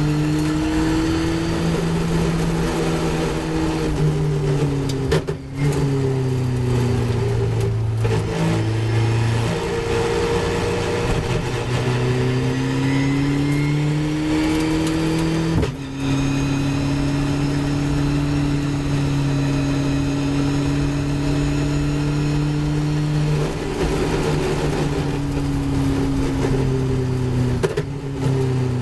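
Caterham 420R's 2.0-litre Ford Duratec four-cylinder engine heard from the cockpit under way, its note rising and falling with throttle. There is a brief dip in the sound at gear changes about five, sixteen and twenty-eight seconds in.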